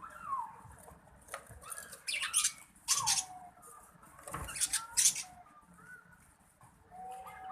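Lovebirds calling: several loud, harsh screeches between about two and five seconds in, among softer short falling chirps.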